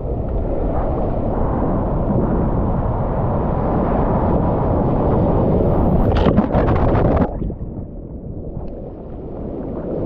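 Ocean surf rushing and churning around a camera held at water level, with a wave breaking over it about six seconds in: a louder, crackling splash that cuts off suddenly, after which the rush is quieter for a couple of seconds before building again near the end.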